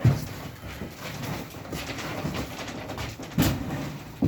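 Heavy thuds and shuffling as a narrow washing machine is carried down by hand, with a loud knock just after the start and another about three and a half seconds in.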